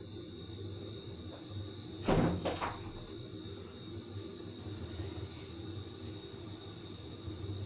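Steady low hum of a pot of rice cooking on a stove, with two short knocks about two seconds in.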